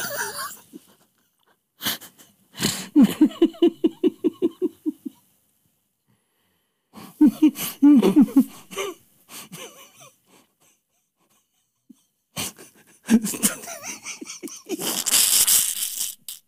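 A man laughing uncontrollably in fits: a run of rapid laughter pulses, about five a second, broken by silent pauses, then long wheezing, gasping laughter near the end.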